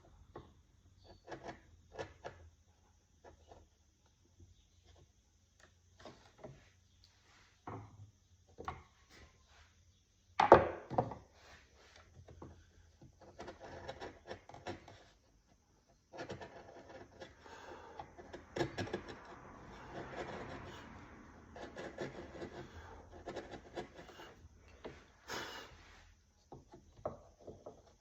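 Wood being worked by hand: a tool scraping and rubbing on wood in long stretches, with scattered light knocks and one sharp knock about ten seconds in.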